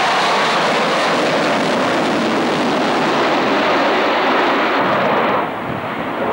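Avro Vulcan bomber's four Rolls-Royce Olympus jet engines, loud and steady as the aircraft passes close by. About five and a half seconds in the sound drops and goes duller as it flies away.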